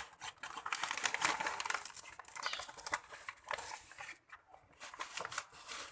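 Bird packaging being opened slowly by hand: irregular rustling, crinkling and scraping with small clicks, busiest at first and sparser near the end.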